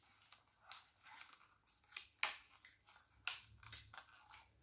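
Plastic lid of a foam drink cup being handled and pried at: several short, faint crackles and clicks, a few tenths of a second to a second apart.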